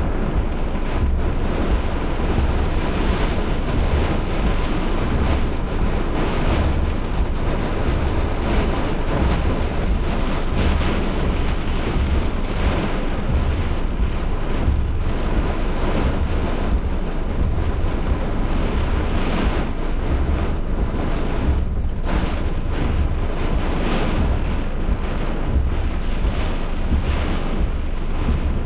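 Severe thunderstorm wind blowing hard and buffeting the microphone: a loud, steady rush with constant low rumbling gusts.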